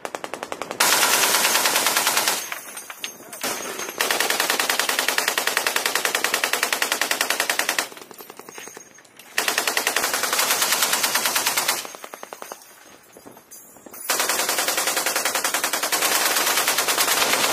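Boat-mounted machine gun firing four long, rapid bursts of roughly one and a half to four seconds each, with short pauses between them.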